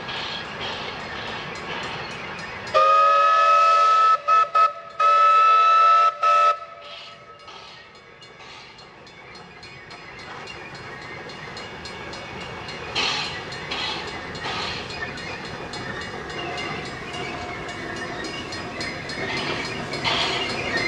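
W934 steam locomotive's whistle sounding about three seconds in: a long blast sliding up to pitch, two quick toots, a second long blast and a brief final toot. Afterwards the running train grows louder as the locomotive draws nearer.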